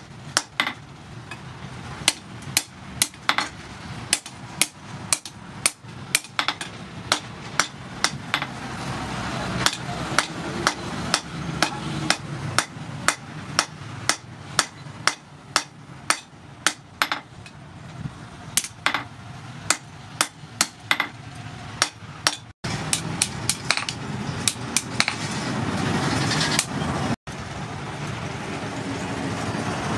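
Hand hammer striking red-hot rebar on an anvil: a run of sharp ringing blows, about one to two a second. A steady noise builds up behind the blows over the last several seconds.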